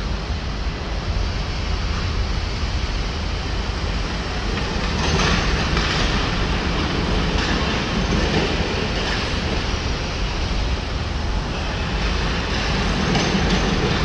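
Jungheinrich electric stand-up reach truck driving across a concrete warehouse floor: a rumble over a steady background hum, with rattling clatter starting about five seconds in and again near the end.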